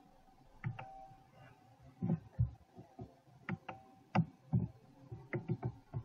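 A dozen or so irregular clicks of a computer mouse, some close together in pairs, each with a slight thud against the desk.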